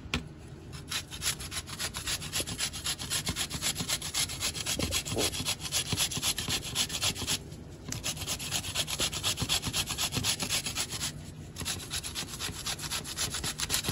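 A peeled English cucumber is being grated on a flat metal hand grater. It makes a fast run of rasping back-and-forth strokes, with two brief pauses.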